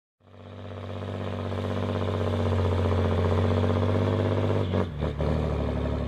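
An engine running at a steady speed, fading in over the first couple of seconds; about five seconds in its note drops and a few short knocks are heard.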